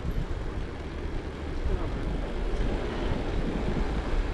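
Steady low rumble of wind buffeting an action camera's microphone, with tyre and road noise from a gravel bike ridden slowly over a road.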